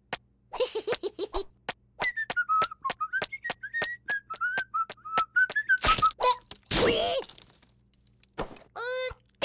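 A cartoon chick whistles a wavering tune while quick, even taps of its steps sound on wooden bridge planks. About six seconds in comes a loud crash and thunk as it falls through the bridge, and near the end a short cartoon vocal sound.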